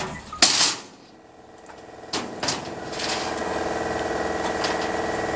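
A door shuts with a loud bang about half a second in; after two sharp clicks, a vehicle engine starts running with a steady hum from about three seconds in.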